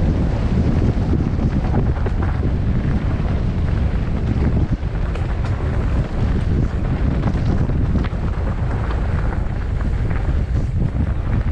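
Wind buffeting the microphone: a loud, steady low rumble that flutters in strength.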